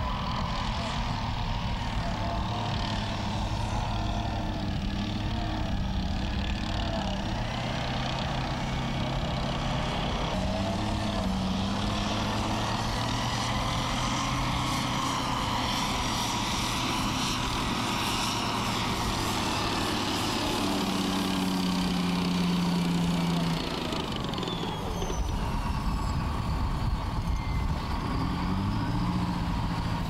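M109 155 mm self-propelled howitzer on the move, its Detroit Diesel 8V71T V8 running steadily under the clatter of its tracks. The engine note swells about twenty seconds in, drops away at about 24 seconds and picks up again near the end.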